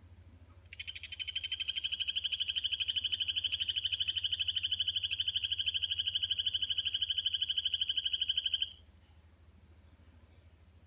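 Male Kokoe poison frog (Phyllobates aurotaenia) giving its territorial call: one long, rapid, high-pitched trill. It swells in loudness over the first second or so, holds steady for about eight seconds, then stops abruptly.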